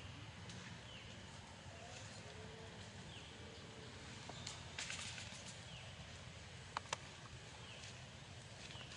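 Faint outdoor ambience: a short falling chirp repeats about once a second, over a low steady hum. Dry leaves rustle briefly about halfway through, and two sharp clicks come close together about seven seconds in.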